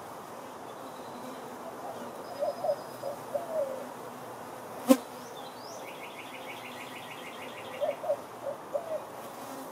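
Honeybees buzzing around a hive. Over the buzz come two runs of short, low calls that rise and fall, the second near the end, and one sharp click about halfway through.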